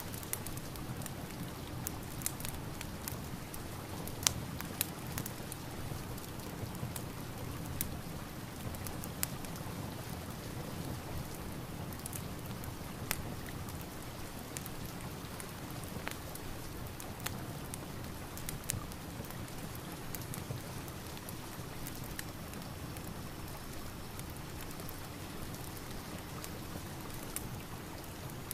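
Steady rain mixed with the irregular crackling and popping of a wood fire, with a few sharper pops standing out.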